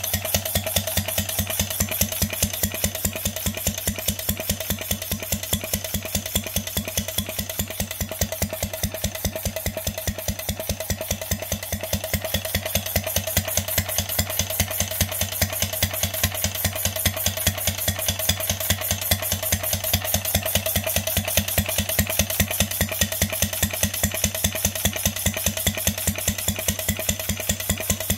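1937 Briggs & Stratton model WM engine, converted to a steam engine and running on compressed air at about 10 psi. It runs steadily, with a rapid, even puffing of air from its unmuffled exhaust, one puff each revolution now that it works as a two-cycle.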